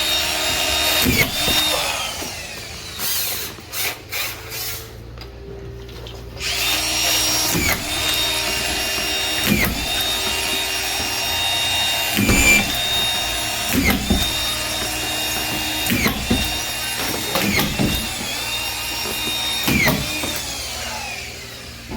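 Drywall screw gun running steadily and driving screws into plasterboard one after another, about every two seconds. Each screw is a short bite where the motor's pitch drops, and there is a pause a few seconds in.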